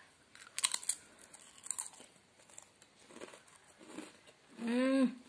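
Crunching and chewing of a thin, sugar-coated Britannia Biscafe coffee cracker, with a few sharp crunches in the first two seconds and softer chewing after. Near the end comes a short hummed "mm".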